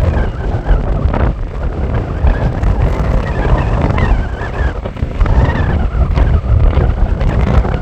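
Strong desert wind gusting and buffeting the microphone, with a wavering whistle riding over the rumble.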